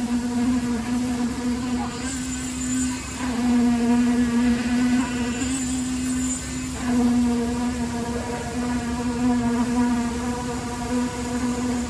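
A small engine or motor running steadily at constant speed, a loud buzzing drone that dips briefly twice.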